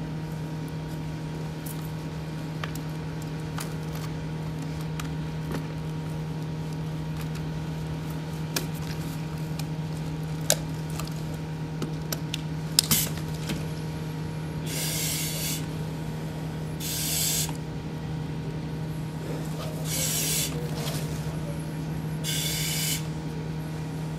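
Firefighter breathing through an SCBA facepiece and regulator: four breaths, each a hiss of air about a second long, two to three seconds apart, starting a little past halfway. Before that, only faint clicks and rustles of gear over a steady low hum.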